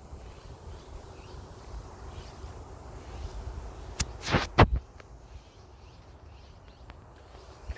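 Outdoor ambience with a steady low rumble and faint bird chirps, broken about four seconds in by a sharp click and a brief, loud scuffing clatter.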